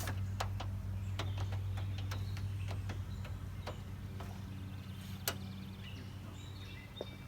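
Scattered light clicks and taps of a plastic trim clip removal tool prying push-pin clips out of a truck's front bumper cowling, over a steady low hum.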